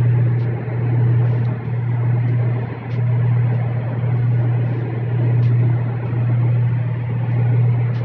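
Steady low machinery hum, with a few faint short clicks over it.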